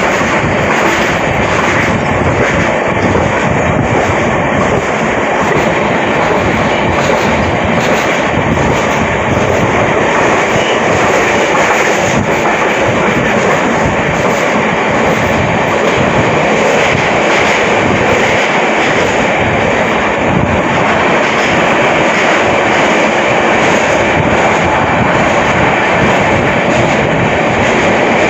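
Passenger express train running at speed: a loud, steady rumble and rattle of wheels on track that holds unchanged throughout.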